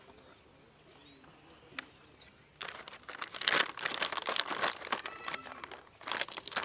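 Crinkling of a self-heating meal pouch's plastic packaging as it is handled, in dense crackly spells for a few seconds from about two and a half seconds in and again briefly near the end, after a single light click.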